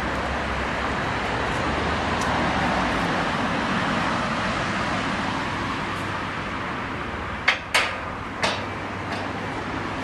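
The swinging track section of a Lartigue monorail point, a steel trestle turned by hand on its central pivot like a turntable, moving round with a steady noise. A few sharp metallic knocks about seven and a half to eight and a half seconds in as it comes into line with the straight track.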